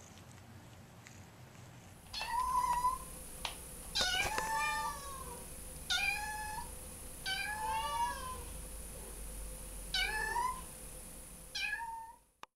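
A ginger kitten meowing repeatedly: about seven high calls, each rising and then falling in pitch, one to two seconds apart.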